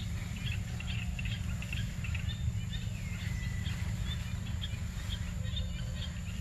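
Forest ambience: scattered small bird chirps with one falling whistle about three seconds in, and a steady high insect tone, over a steady low rumble.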